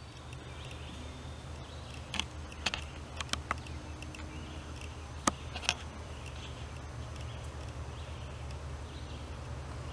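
Woodland ambience: a steady low hum with faint high chirping, broken by a handful of sharp clicks or snaps about two to six seconds in, the loudest a little past five seconds.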